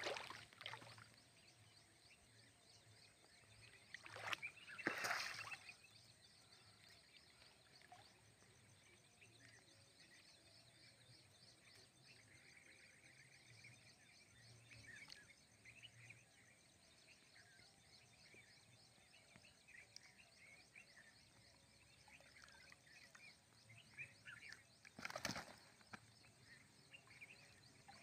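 Quiet pond-side ambience with faint bird chirping, broken by two brief, louder rushes of noise, about four seconds in and near the end.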